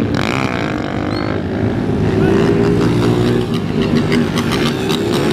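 Several motorcycle engines running and revving at once as bikes ride past, their pitches overlapping and rising and falling.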